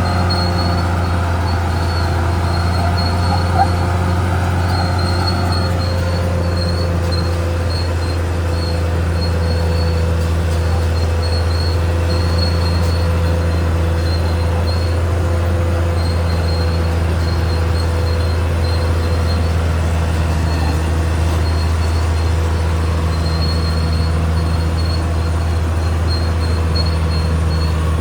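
Caterpillar D6R XL bulldozer's diesel engine running steadily under work, with a thin, intermittent high squeal typical of its steel tracks. A rougher added noise over the engine stops about six seconds in.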